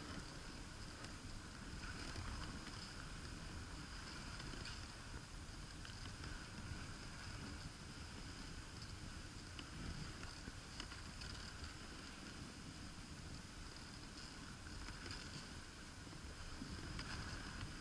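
Dog sled gliding over packed snow: a steady hiss from the runners, with wind buffeting the microphone and a few faint ticks.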